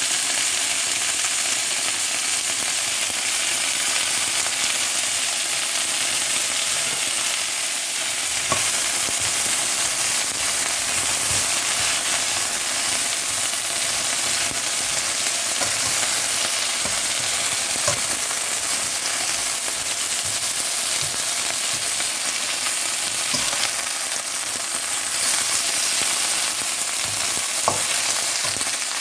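Blue crabs frying in a hot pan with ginger and spring onion, a steady loud sizzle throughout. A few sharp clicks stand out, about a third of the way in, midway and near the end.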